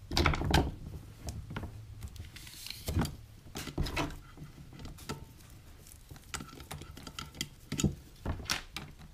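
A rubber-jacketed power cord and a utility knife being handled on a workbench while the cord's outer jacket is cut and stripped: irregular light clicks, knocks and rustling, with a brief scraping hiss about three seconds in.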